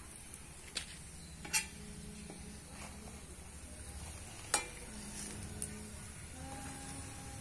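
Food sizzling in a frying pan on a small wood fire as a metal spatula stirs it, the spatula knocking sharply against the pan about four times.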